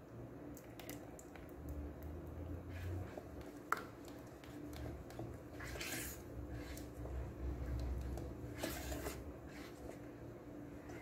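Silicone spatula stirring thick melted chocolate ganache in an electric rice cooker's pot. A sharp click comes a little under four seconds in, and short louder rustles come about six seconds in and again near nine seconds.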